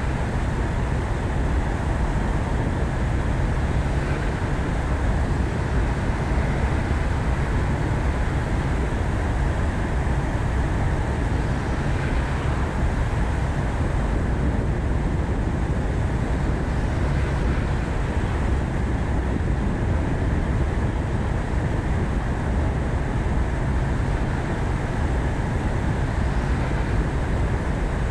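Ford Focus ST being driven: steady road and engine noise, heaviest at the low end, holding even throughout.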